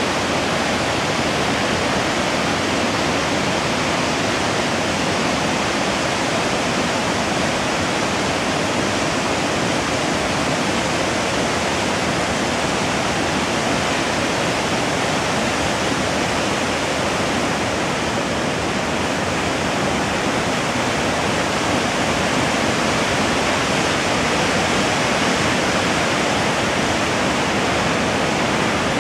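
Steady, even rushing noise with no pauses, strokes or tones, like running water.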